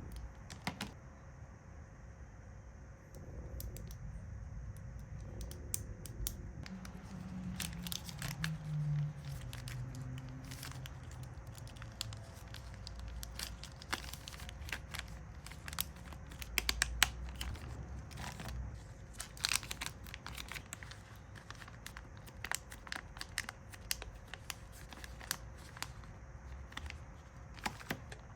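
Plastic packaging crinkling and crackling as it is handled by hand, with irregular sharp clicks and crackles, loudest about two-thirds of the way through, over a faint steady hum.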